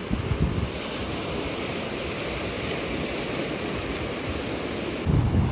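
Small waves breaking and washing up the beach, a steady rush of surf. Near the end a louder low rumble comes in suddenly.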